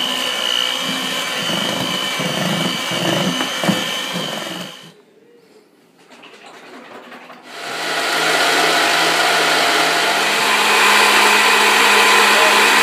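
Electric hand mixer running, its beaters churning a thick creamy mixture in a stainless steel bowl; it stops about five seconds in. After a short quieter stretch a stand mixer starts and runs steadily, whipping a white mixture in a steel bowl.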